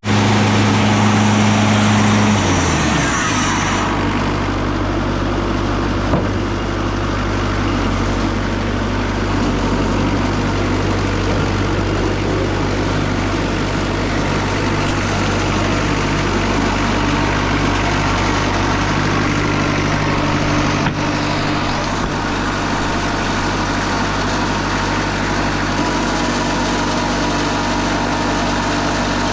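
A heavy engine on the sawmill yard's machinery revs down about two to three seconds in, then runs steadily at a lower speed.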